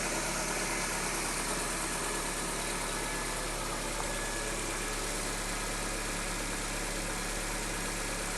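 Fiat Palio 1.8R's GM Família I engine idling steadily, without the intermittent noise from the top of the engine that the owner is trying to diagnose.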